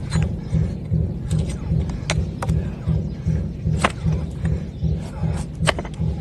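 Sharp clicks and snaps from hoof-trimming tools cutting a donkey's overgrown hoof, about a dozen spread irregularly. They sit over a low, regular thumping of about three beats a second.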